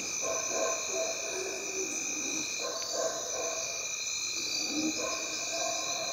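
Night chorus of insects trilling steadily on several high pitches, with faint, distant howler monkey roars coming and going underneath.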